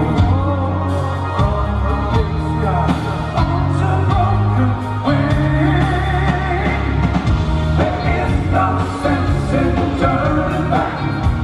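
Live rock band performing: a man singing lead over electric bass guitar and drums.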